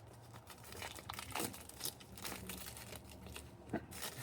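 Shipping packaging rustling and crinkling in short, irregular bursts as a mail order is opened by hand.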